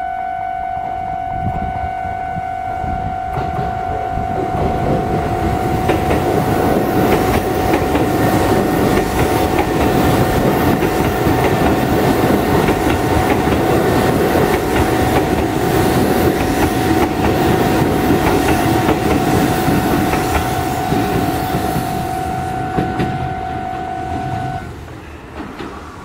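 A Keisei Main Line electric train runs through a level crossing, its wheels clattering over the rails as the rumble builds, holds and fades. The crossing's electronic warning bell rings steadily throughout and stops near the end once the train has cleared.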